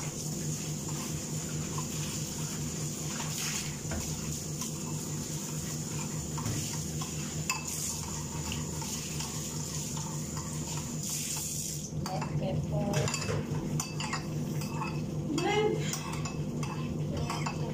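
Dishes, pots and cutlery clinking and clattering, busier and louder in the second half, over a steady low hum.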